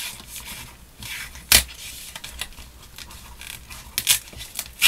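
Folded paper rustling and crinkling as hands press and shift it, with one sharp crackle about a second and a half in and a few quick crackles near the end.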